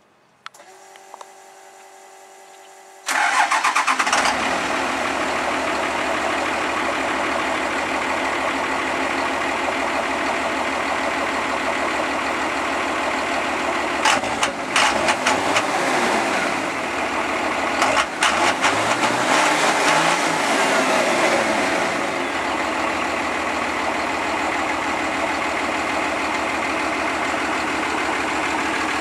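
Cummins 12-valve diesel in a 1989 Chevy pickup, started warm: a couple of seconds of starter whir, then the engine catches about three seconds in and settles into a loud idle through twin exhaust stacks. It is revved up and back down twice around the middle with a few quick blips, then idles steadily again.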